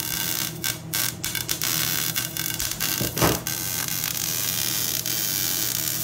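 MIG (wire-feed) welding arc crackling steadily as a joint on steel tubing is welded, with the welder's electrical hum underneath. One brief louder sound comes a little over three seconds in.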